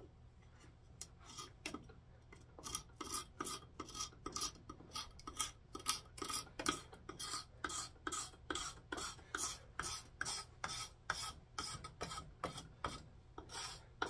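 Knife blade scraping the dirty old finish off a wooden hammer handle in short, steady strokes, about two a second, starting about a second in.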